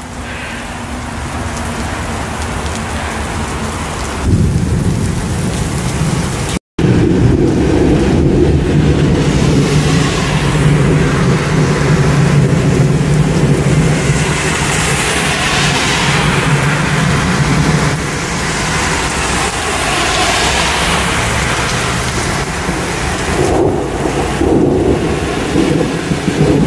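Thunderstorm: heavy rain falling with long rolls of thunder. The sound steps up louder about four seconds in, cuts out for a split second a little later, and the heaviest low rumble comes through the middle.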